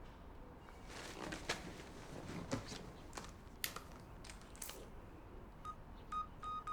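Faint rustling and scattered clicks of objects being handled, then a quick run of short electronic key-press beeps near the end.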